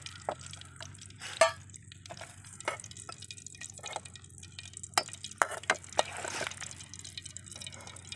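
A metal ladle clinking and scraping against a metal cooking pan as fried mango pieces are scooped out, a string of sharp, irregular clinks.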